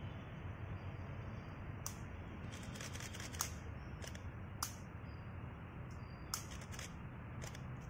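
A series of short, sharp clicks at irregular intervals, a few in a quick run about three seconds in, over a steady low background noise.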